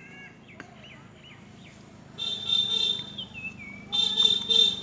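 A vehicle horn beeping in quick repeated toots: a burst of several beeps about two seconds in and another near the end.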